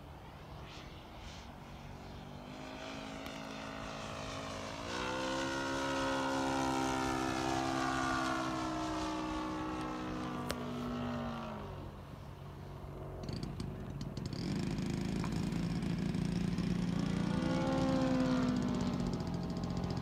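Engine and propeller of a Seagull Extra 300 radio-controlled model plane in flight. Its note swells about five seconds in, slides lower and drops away near twelve seconds, then rises and falls again near the end as the plane passes.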